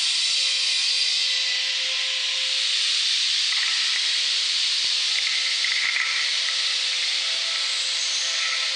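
Electronic sound-design score: a steady rushing hiss with faint held tones underneath and a few faint clicks.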